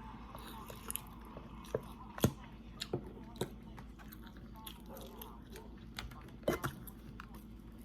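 Close-miked eating: chewing with scattered short wet smacks and clicks of the mouth and lips.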